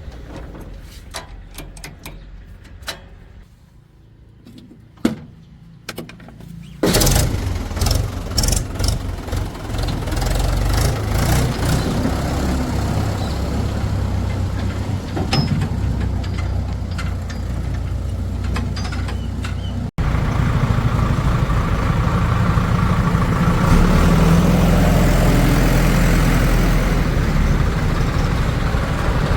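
Scattered clicks and knocks at first, then a heavy diesel engine comes in suddenly about seven seconds in and runs steadily, with a brief break about two-thirds of the way through after which it is louder.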